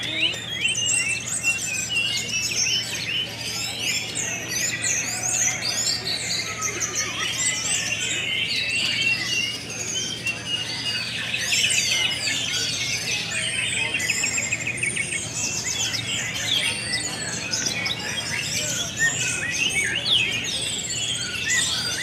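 Many caged songbirds singing at once in a bird-song contest: a dense, unbroken chorus of overlapping fast warbles, trills and chirps.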